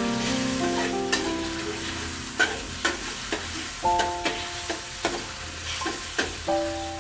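A metal wok spatula scrapes and clinks against a metal wok as it stirs a sizzling sauce, with about a dozen sharp knocks in the second half. Soft piano-like background music plays throughout.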